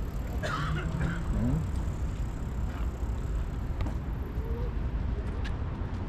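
Outdoor ambience: a steady low rumble, with faint distant voices about half a second in and a single click near the end.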